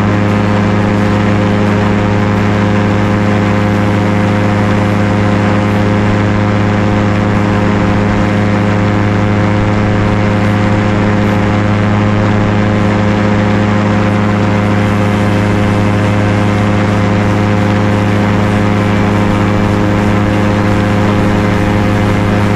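Light aircraft's engine and propeller running in flight: a loud, steady low drone with no change in pitch.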